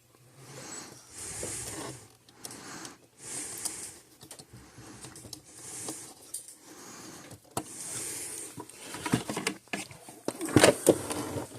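Hands handling wires, connectors and small plastic parts on a workbench: irregular rustling and light clicks, with a cluster of sharper clicks about ten seconds in.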